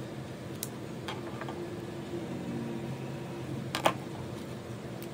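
Light clicks and taps from a felt-tip marker being handled and put down, the loudest a single sharp click just before four seconds in, over a steady low hum.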